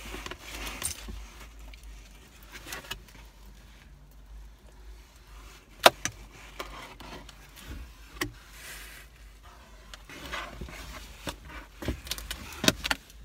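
Handling of a cardboard pizza box, with eating: quiet rustling and scraping, with scattered clicks, the sharpest about six seconds in and several more near the end.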